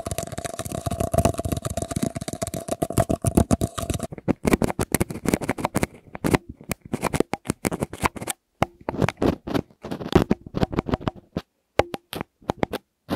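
Long fingernails tapping rapidly on a paper cup, with a faint steady tone under the tapping. About four seconds in it changes to a plastic syringe poking and tapping directly on the Tascam binaural microphone: separate sharp taps, unevenly spaced.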